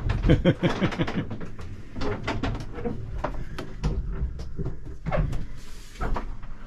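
Irregular knocks and clunks, like doors or hatches being handled, with indistinct voices in the first second.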